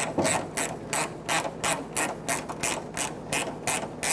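Ratchet on a 13 mm socket or wrench clicking as it runs in the hood latch bolts, about three even clicks a second.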